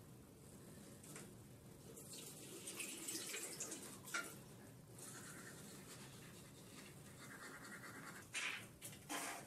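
Toothbrushing at a bathroom washbasin: scratchy brushing noises and running tap water, with two louder sharp sounds near the end.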